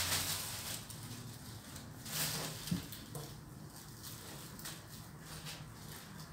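Crinkly plastic sheet rustling as a cat and kitten roll and wrestle on it, in bursts that are loudest at the start and about two seconds in, with a small click just after the second burst.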